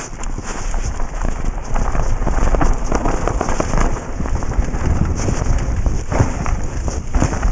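Mountain bike running fast down a dry dirt trail, heard through a helmet camera's microphone: wind rushing over the mic, tyres crunching on dirt and many sharp clatters from the bike over bumps. It gets louder over the first couple of seconds as speed builds.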